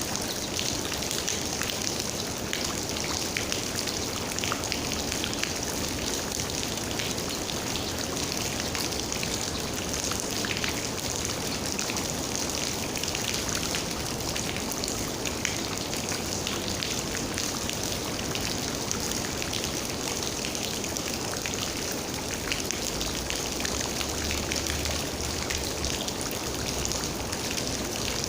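Steady rain falling, a continuous hiss with many separate drops landing in sharp little ticks.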